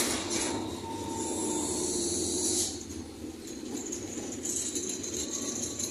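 Inside a moving bus: steady engine drone with rattling and a hiss that fades out about two and a half seconds in and returns near the end.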